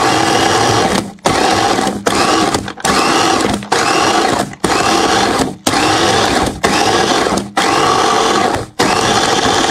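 Electric food chopper's motor and blades crushing ice cubes in a stainless steel bowl. It runs in short pulses of about a second each, with a brief break between them, and the pitch rises as each pulse spins up.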